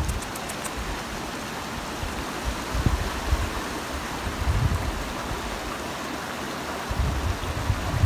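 Wind on a phone's microphone: a steady rushing hiss, with low buffeting gusts several times.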